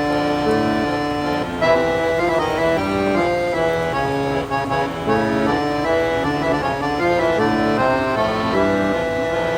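Background music: an instrumental tune of sustained, reedy notes moving in a melody, with an accordion- or organ-like sound.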